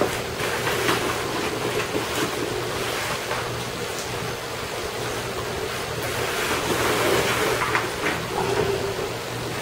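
Rustling and light plastic clicks from a GoPro chin mount being handled and fitted onto a full-face motorcycle helmet, over a steady background hiss with a low hum.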